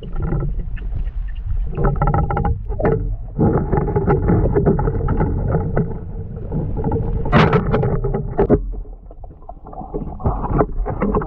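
Underwater noise picked up by a submerged camera: muffled rushing and crackling of river water as a spearfisher swims among the rocks. A sharper, louder burst comes about seven seconds in.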